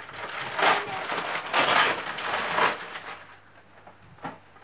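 Gift wrapping paper crinkling and rustling in several bursts as it is pulled open around a boxed present, then going quieter, with one short click near the end.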